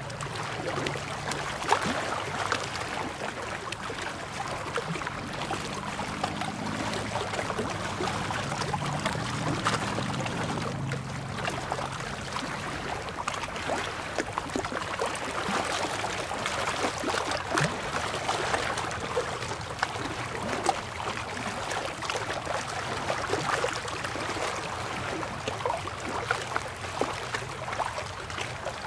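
Small waves lapping and splashing against shoreline rocks: a steady wash dotted with many little splashes and trickles.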